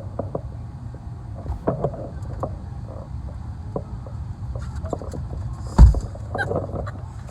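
Steady low rumble of a car's engine and tyres heard from inside the moving car, with scattered small clicks and one loud thump just before the end.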